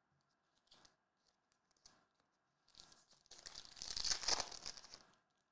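A Panini Select La Liga trading card pack's wrapper being torn open, with a couple of seconds of crinkling tearing noise in the second half, loudest just past the middle. A few faint ticks of cards being handled come before it.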